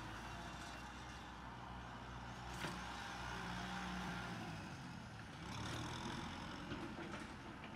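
Kubota M6040SU tractor's four-cylinder diesel engine running steadily under plowing load, its note rising and easing a little. A single sharp click comes a little over two and a half seconds in.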